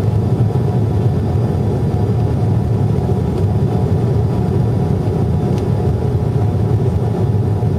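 Jet engines heard from inside an airliner cabin during the climb after takeoff: a steady low rumble with a faint even hum above it.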